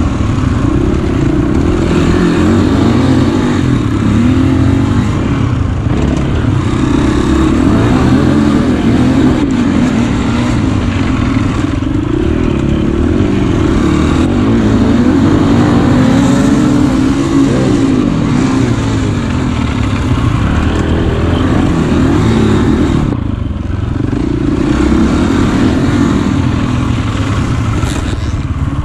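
KTM 300 EXC two-stroke enduro motorcycle engine being ridden hard on a dirt track, revving up and down constantly with the throttle. The throttle eases off briefly about three-quarters of the way through.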